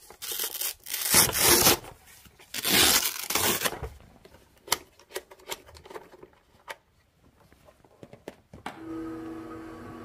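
Hook-and-loop fastener ripping three times as the microfiber cleaning pad is peeled off a window-cleaning robot, followed by a few small clicks. About nine seconds in, a steady motor hum with a faint whine starts: the robot's suction fan running.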